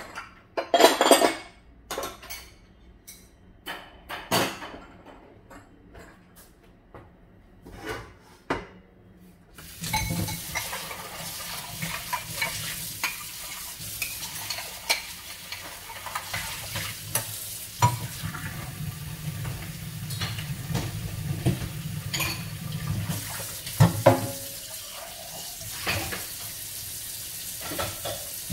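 Kitchen utensils and dishes clinking and knocking. About ten seconds in, a steady hiss sets in and runs under further clatter of utensils.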